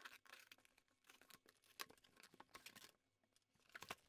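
Faint scratching and crackling of a utility knife slitting packing tape along a cardboard box's seam, with scattered small ticks; a couple of slightly louder crackles near the end as the cardboard flaps are pulled open.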